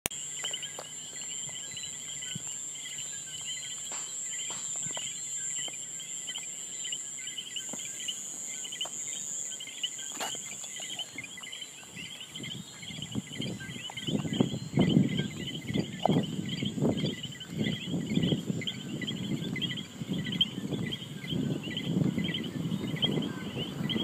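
Chorus of common coquí frogs: many short calls overlapping in a dense, continuous run, over a steady high-pitched whine. From about halfway, an irregular low rumbling of handling noise grows louder than the frogs.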